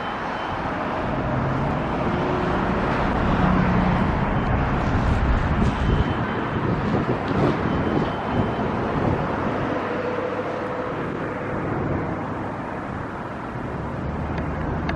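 Road vehicle noise: a steady rush of a motor vehicle that swells over the first few seconds and eases off in the second half.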